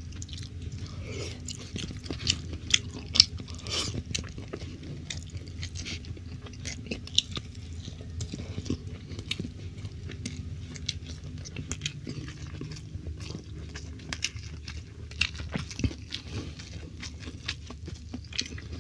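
Close-up chewing and biting of stir-fried meat and rice, with frequent irregular wet mouth clicks and smacks. A steady low hum runs underneath.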